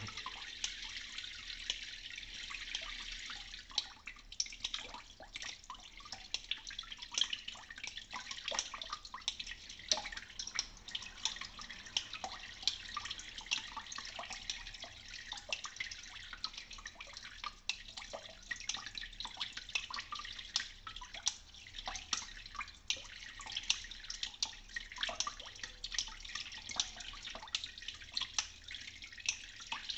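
Tap water running and dripping over a wet honing stone in a sink, with many small irregular ticks and splashes, as a straight razor is stroked across the stone under the running water.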